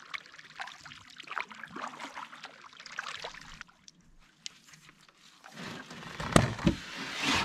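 Water trickling and dripping around a canoe paddle, with light splashes, for the first few seconds. After a short lull, a louder stretch of knocks and low rumbling near the end, like the canoe or gear being bumped and handled.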